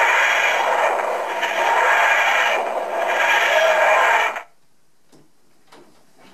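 Background music that cuts off abruptly about four seconds in, leaving quiet room sound with a few faint taps.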